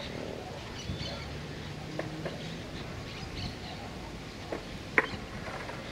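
Faint birds chirping over steady outdoor background noise, with a few light knocks and one sharp clack about five seconds in as a skateboard is set down on the concrete.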